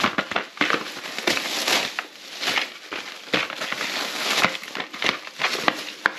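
Clear plastic packing wrap crinkling and crackling as it is pulled and crumpled off a carded action figure, in quick irregular rustles with a few sharper crackles.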